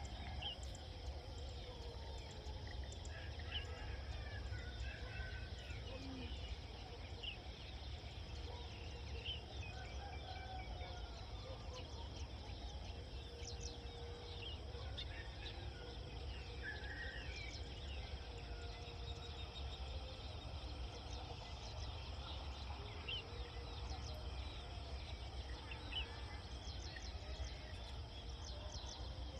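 Rural outdoor ambience: scattered short bird chirps over a steady high insect drone and a constant low rumble.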